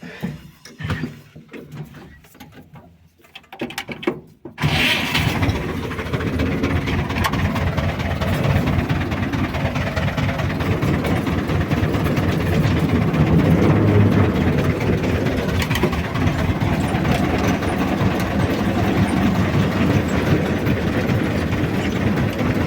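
A few scattered knocks and clicks. Then, about four and a half seconds in, an engine starts suddenly and keeps running steadily and loudly.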